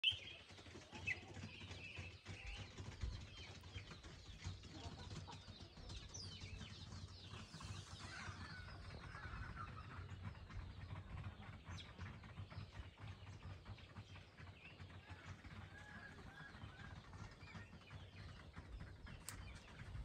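Faint small birds chirping, with scattered short high calls, and chickens clucking now and then, over a steady low rumble.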